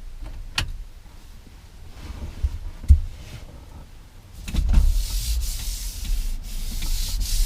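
Hand tools tightening a steering wheel retaining nut on a 2004 Chevrolet Silverado's locked steering column. A few sharp clicks and knocks come first, then about halfway in a continuous rasping noise takes over.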